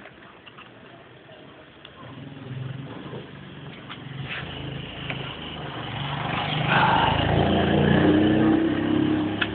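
A motor vehicle's engine passing close by, growing steadily louder over several seconds to its loudest near the end, then easing slightly. A few faint clicks are heard before it builds.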